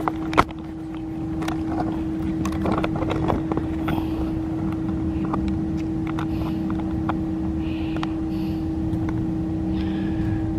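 A steady motor hum over a low rumble, like an idling engine or passing traffic. A single sharp knock comes about half a second in, and a few faint short calls, likely birds, sound later on.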